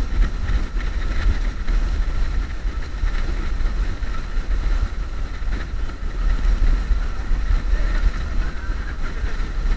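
Wind buffeting the microphone of a camera on a moving electric scooter: a steady, fluttering low rumble.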